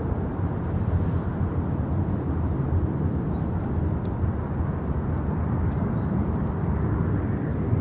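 Jet airliner engines, heard as a steady low rumble without change.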